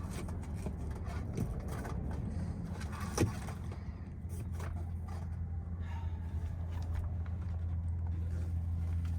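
Semi truck's engine running, a steady low drone in the cab, with one sharp click about three seconds in and a few faint knocks as things under the bunk are moved.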